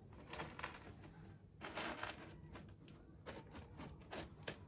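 A cat scratching and digging in pellet cat litter, with irregular short scrapes and rattles of the pellets; the longest and loudest scrape comes about two seconds in.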